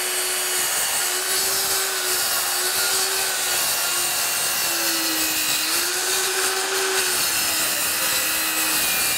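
Circular saw running and ripping an engineered hardwood flooring plank as the plank is fed past the held-still blade, a steady motor whine over loud cutting noise; the whine sags slightly in pitch under load about five seconds in.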